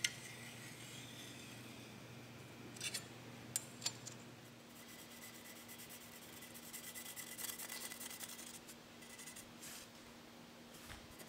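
Felt-tip marker scratching over a mild-steel trowel blank in quick back-and-forth hatching strokes, faint, with a few light clicks about three seconds in.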